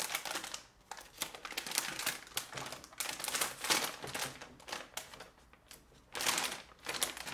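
Antistatic plastic bag crinkling and rustling in irregular bursts as it is handled and opened, with a louder burst a little after six seconds in.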